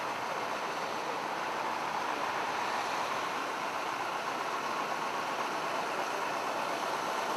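Steady rushing noise of heavy rain and floodwater, with no distinct engine note.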